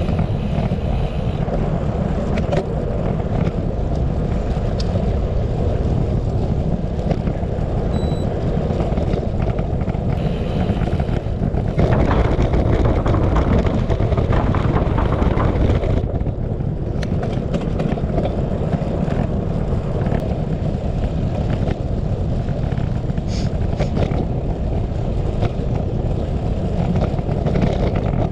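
Wind rushing over the microphone of a moving bicycle, a steady low rumble that swells louder for a few seconds about twelve seconds in.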